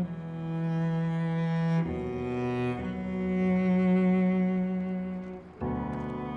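Slow background music of bowed strings led by a cello, playing long held notes that change a few times.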